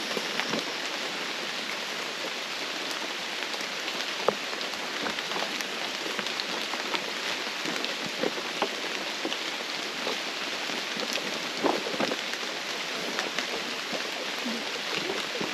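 Light rain falling on jungle foliage: an even, steady patter with scattered sharper drop ticks.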